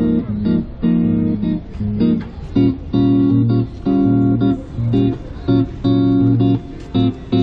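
Music: strummed acoustic guitar chords in a steady rhythm, with no singing.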